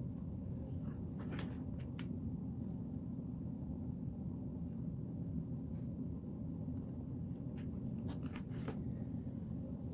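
Steady low background hum of a small room, with a few light clicks about a second in and again near the end.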